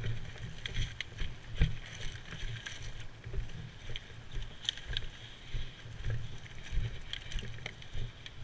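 Footsteps and rustling of a person moving over forest ground, with uneven thumps every half second to a second and short crackles in between.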